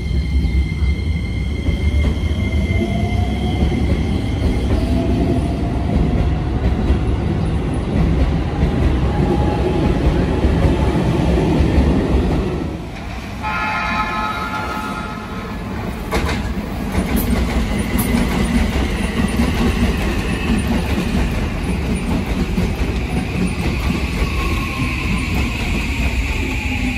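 Keisei 3000 series electric train pulling away, its traction-motor whine rising in pitch over a rumble of wheels on rail. About halfway the sound drops away, a short steady tone sounds, and a Toei 5500 series train rolls in; near the end its motor whine falls in pitch as it brakes.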